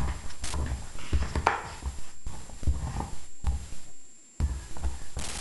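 Bull terrier gnawing and crunching a bone: irregular crunches and clicks of teeth on the bone, with dull low thuds. There is a short pause about four seconds in.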